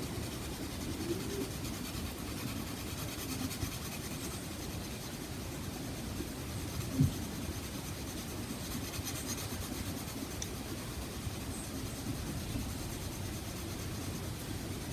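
Pencil shading on sketchbook paper, a steady scratchy rubbing as the lead is scribbled back and forth to fill in an area, with one light knock about seven seconds in.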